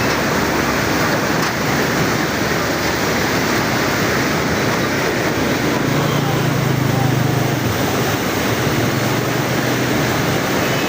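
Fast-flowing floodwater rushing steadily, pouring through from a breached embankment. A low hum joins for a few seconds around the middle.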